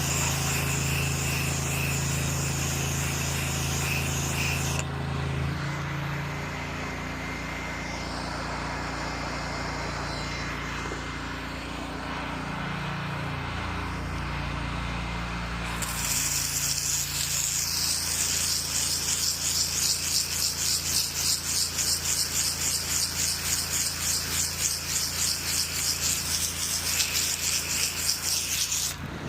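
Pressure-washing rig's engine running steadily under a hissing water spray, then, about halfway through, loud rhythmic swishing strokes, roughly two to three a second, typical of scrubbing a gutter with a brush.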